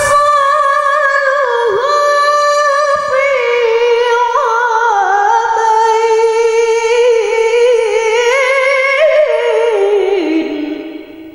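A woman chanting Quran recitation (tilawah) into a handheld microphone: one long melodic phrase with wavering ornamented turns, rising in pitch near the end and then falling away to fade out about ten seconds in.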